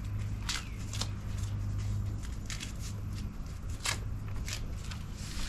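Scattered clicks, taps and rustles of parts and packaging being handled, over a steady low hum that stops a little over two seconds in.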